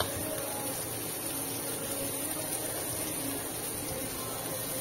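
Steady, even hiss-like background noise with no distinct sounds standing out.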